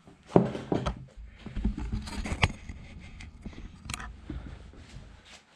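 Knocks and scraping as the height-adjustable pan table on a meat grinder's frame is moved down: one sharp knock about half a second in, then a run of smaller knocks and scraping that dies away near the end.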